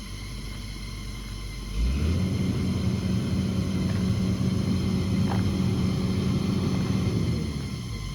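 Excavator's diesel engine revving up about two seconds in and running hard at a steady pitch, as under hydraulic load, then dropping back to a lower drone near the end.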